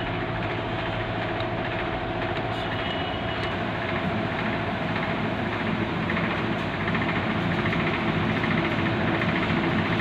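Steady, loud machinery drone with a low hum underneath, running without change.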